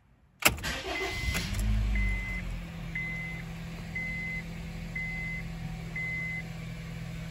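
2013 Honda Fit's 1.5-litre four-cylinder engine started after an oil change so the new filter fills: a brief crank, it catches with a short rise in revs, then settles to a steady idle. A dashboard warning beeper sounds over it about once a second, six times.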